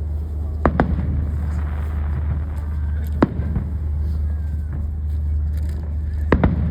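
Fireworks shells bursting: a quick double bang, a single bang a few seconds later, and another double bang near the end, over a steady low rumble.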